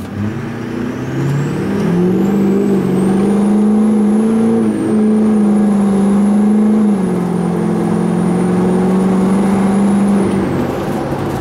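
6.6L Duramax LBZ V8 turbodiesel in a 2007 Chevy 3500 under hard acceleration, heard from inside the cab, with the high whistle of its Garrett PowerMax Stage 1 turbo climbing over the first couple of seconds and then holding. The engine note rises, steps down twice, and everything falls away near the end as the throttle comes off.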